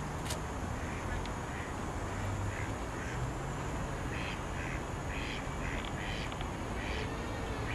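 Ducks on the canal quacking, a run of short quacks that comes thick and fast in the second half, over a steady low rumble.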